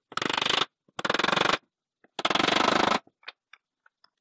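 Three short bursts of rapid-fire hammering, about 25 blows a second, through a wooden block and steel drift onto a needle bearing being driven into a chainsaw clutch drum's hub. Metal parts rattle against the steel bench.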